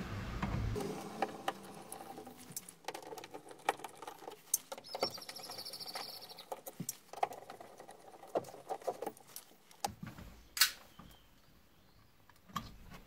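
Small clicks, scrapes and rattles of a screwdriver undoing the screws of a stock 5x7 coaxial speaker in a car door, and of the plastic speaker being worked loose from the door. One sharper, louder click comes late on.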